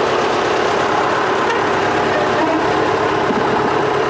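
Diesel engine of a small rail vehicle running steadily as the locomotive moves slowly along the track.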